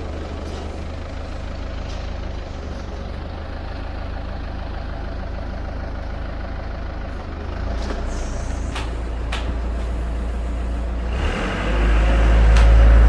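Isuzu Elf crane truck's engine running steadily, picking up about two-thirds of the way through and then revving up loudly for the last second or two before dropping back sharply. A couple of short clicks are heard in the middle.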